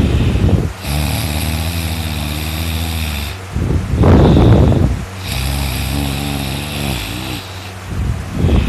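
A person snoring loudly in deep sleep. Long buzzing snores of two to three seconds alternate with loud breathy gusts, in a cycle of about four seconds.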